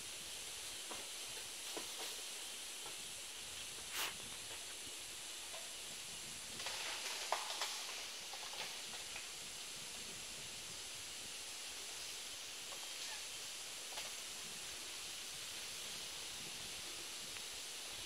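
Steady high hiss of forest background, with a sharp click about four seconds in and a short burst of rustling and crackling a few seconds later. No howler monkey calls are heard.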